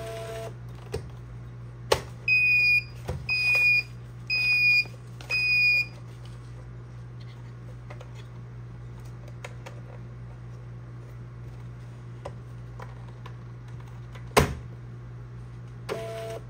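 Thermal label printer: a click about two seconds in, then four high beeps about a second apart while its cover is open. Later the cover shuts with a sharp click, and near the end the feed motor runs briefly with a low two-tone whir. A steady low hum runs underneath.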